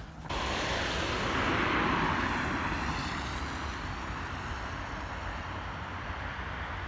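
Car passing on a wet road: tyre hiss swelling to its loudest about two seconds in, then slowly fading, over a steady low rumble.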